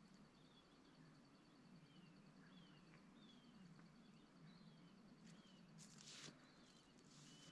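Faint bush ambience, near silence: a bird repeating short descending whistles every second or so, over a faint steady pulsing high note, with a brief burst of noise about six seconds in.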